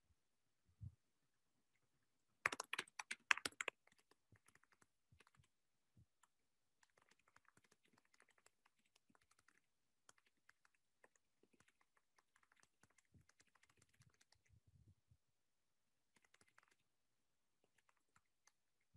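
Faint typing on a computer keyboard: a quick run of louder keystrokes about two and a half seconds in, then softer, rapid key clicks on and off until near the end.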